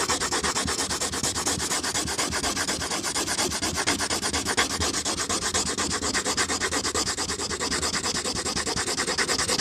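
Pencil lead rubbing on paper in rapid, even back-and-forth strokes, like fast shading or scribbling.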